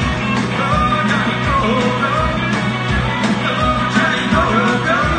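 Live blues-rock band playing loud: two electric guitars, electric bass and a drum kit, with a melody line bending up and down in pitch over a steady beat.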